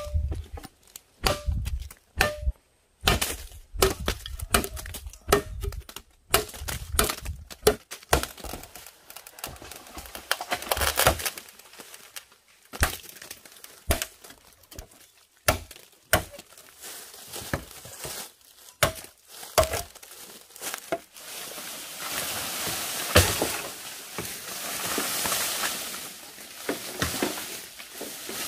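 Irregular sharp cracks and knocks with crinkling rustles between them. After about twenty seconds it turns into a denser, steadier rustling hiss, still broken by the odd sharp knock.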